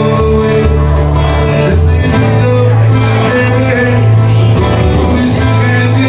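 Live amplified acoustic guitar and a singing voice, a solo performer playing through a small PA, with a steady bass line underneath.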